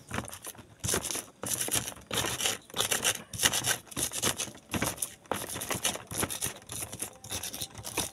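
Pestle grinding and crushing fresh chilies in a shallow cobek mortar: irregular scraping and knocking strokes, about two a second.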